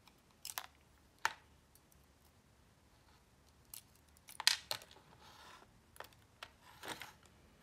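Small metal clicks and light scrapes of a lock cylinder, key and tweezers being handled. There are a handful of sharp, separate ticks, the loudest about four and a half seconds in, with a short rustle or two among them.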